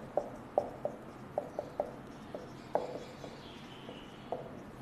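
Felt-tip marker squeaking faintly on a whiteboard in about a dozen short, irregular strokes as a word is handwritten.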